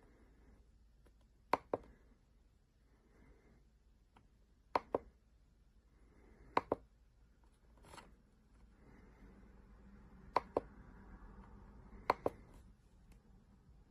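Keys on an RK Royal Kludge S98 mechanical keyboard pressed one at a time, about every two seconds, each giving a sharp double click. A faint rustle runs under the clicks in the second half.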